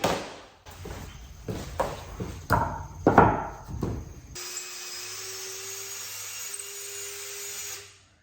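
Power drill boring a pilot hole into hard oak, first cutting in uneven surges, then running steadily for a few seconds before it stops just before the end.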